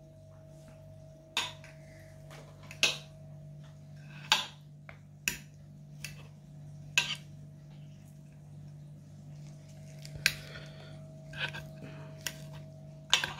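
Knife and fork clinking and scraping against a plate while cutting pan-fried salmon: about nine separate sharp clinks spread through, over a faint steady hum.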